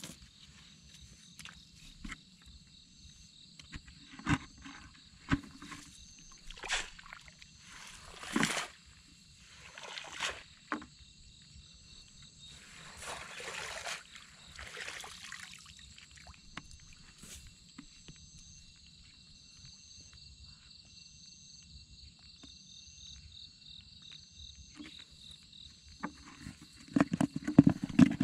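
Water sloshing and splashing now and then as hands work in the shallows at a pond's edge, over a steady high-pitched insect chorus with a regular pulsing call. Near the end, loud rustling and footsteps through dry grass.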